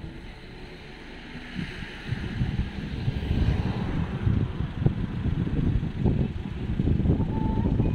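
Wind buffeting the microphone in irregular gusts, with a soft hiss that swells and fades in the first half.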